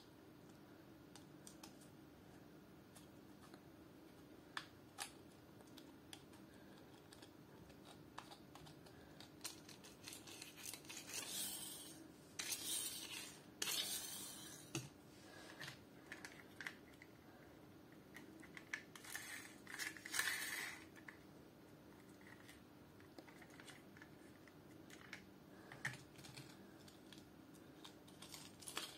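Small toy cars being handled and turned over in the hands: faint scattered clicks and light knocks, with two short stretches of scraping and rustling, one a little before the middle and one a few seconds after it.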